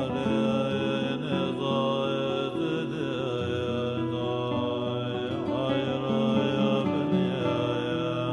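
Soundtrack music: a chant-like voice wavering over a bed of held instrumental tones.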